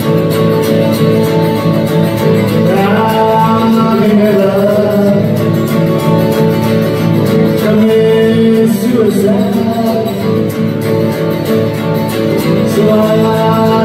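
Acoustic guitar playing steadily, with a man singing over it in a few phrases.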